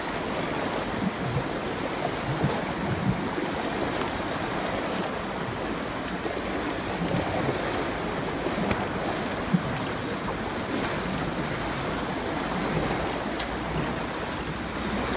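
Steady rush of a fast-flowing river, with water splashing around elephants' legs as they wade across.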